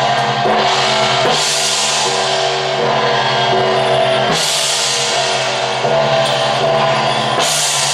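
Temple percussion ensemble playing for a Zhong Kui dance: large hand cymbals crash three times, about every three seconds, each left to ring out, over continuous drumming and pitched accompaniment.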